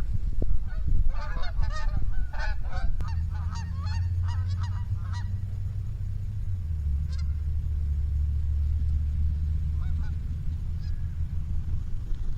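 A flock of geese honking, a rapid overlapping flurry of calls for about the first five seconds, then only a few scattered honks. Underneath, from about three seconds in, a loud low steady hum runs until near the end.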